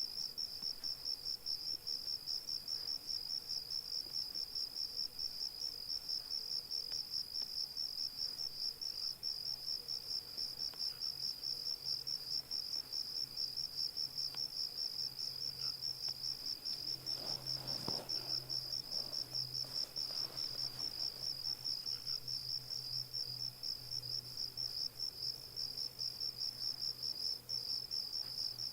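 Field crickets chirping in an even, rapid pulsing rhythm, with a faint steady low hum underneath.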